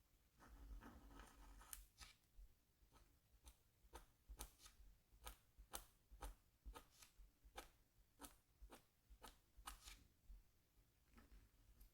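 Scratch tool scraping lines into a scratchboard's coated surface: a longer rough scrape near the start, then short, sharp strokes at about two a second.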